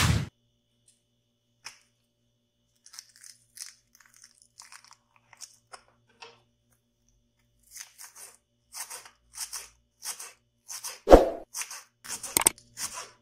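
A thump on a wooden cutting board, then iceberg lettuce leaves crinkling as they are handled and rolled. From about halfway through, a knife shreds the rolled lettuce, making crisp crunching cuts about two a second, with a heavier knock of the blade on the board near the end.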